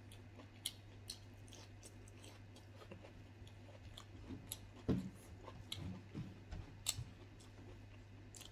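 A person chewing food with the mouth close to the microphone, with scattered small mouth clicks, and a louder run of chewing from about four and a half to seven seconds in, over a low steady hum.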